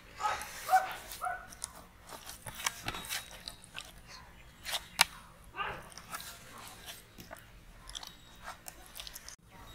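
Wet squelching and slapping of masala-coated fish pieces being handled by hand in a steel bowl, with irregular clicks as pieces knock the steel. A short pitched sound about a second in is the loudest moment.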